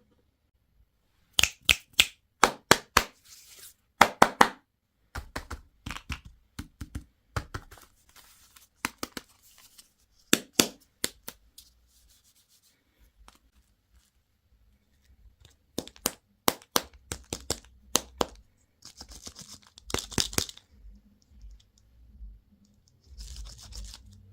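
Plastic candy and toy packaging being handled and torn open by hand: bursts of sharp crackling clicks, with rustling crinkles in between and a few soft thumps.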